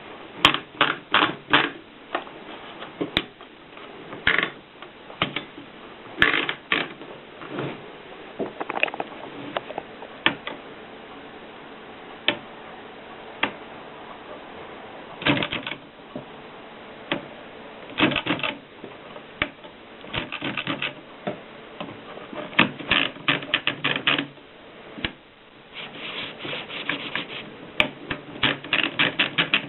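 Japy Script typewriter being typed on: keys striking in quick runs of several clicks with short pauses between.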